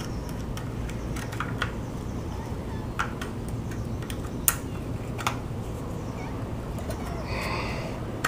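Scattered small clicks and taps of a screwdriver working a patio screen door tension wheel's anchor clip, spreading its prongs to seat it on the frame peg, over a low steady hum. A sharper click comes at the very end as the clip goes on.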